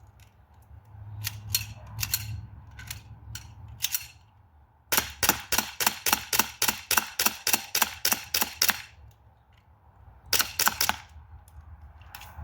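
CO2 BB pistol, a Springfield Armory M1911A1, fired in a rapid string of about eighteen shots, roughly four or five a second, after a few scattered clicks. A second quick burst of three or four shots follows about a second and a half later.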